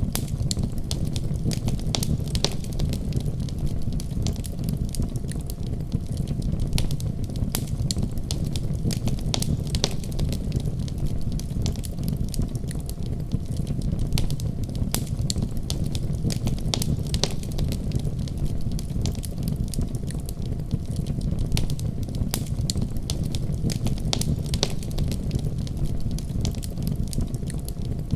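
Fireplace fire crackling: frequent irregular snaps and pops over a steady low rumble of the flames.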